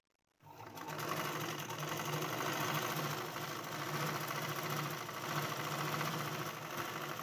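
Domestic straight-stitch sewing machine stitching a folded seam edge: it starts about half a second in and then runs at a steady speed, a fast even clatter of needle strokes.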